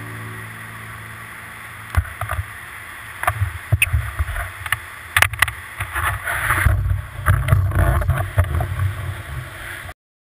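Water sloshing and splashing around a surfboard, picked up by a GoPro mounted on the board, with an uneven low rumble and several sharp knocks against the board. It cuts off suddenly near the end.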